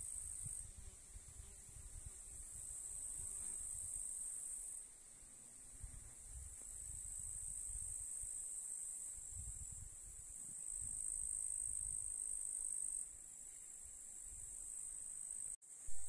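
A chorus of summer insects shrilling steadily high up, swelling and dropping back a few times. Gusts of wind rumble low on the microphone, and near the end the sound cuts out for a moment with a click.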